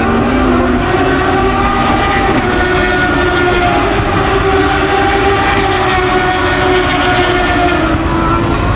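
A pack of racing motorcycles running at high revs, heard together as a steady engine drone whose pitches drift slowly up and down.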